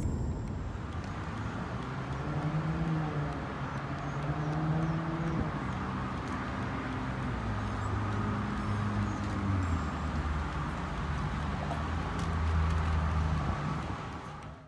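Car or traffic noise: a low engine hum that shifts and glides in pitch, under a steady rushing road noise.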